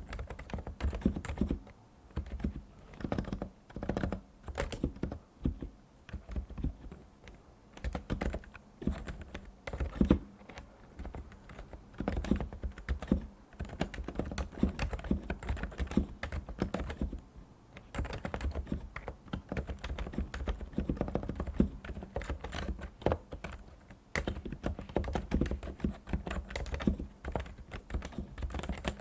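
Typing on a Realforce R2 PFU Limited Edition TKL keyboard with Topre electrostatic capacitive switches: quick runs of keystrokes with a few short pauses.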